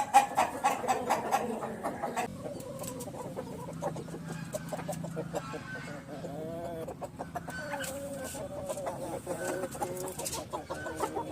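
Chickens clucking, with scattered short calls and many quick clicks among them.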